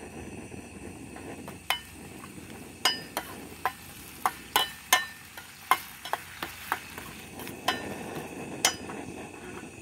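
Metal spoon stirring and scraping chili paste in a small stainless-steel frying pan, with sharp clinks against the pan at irregular intervals over a steady sizzle of the frying paste.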